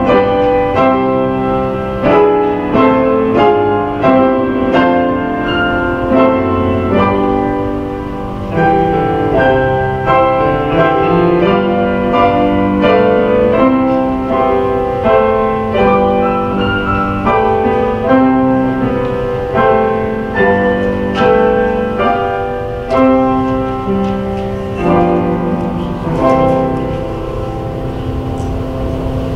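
Grand piano playing a slow piece in chords, with a new chord struck about once a second and the notes left to ring.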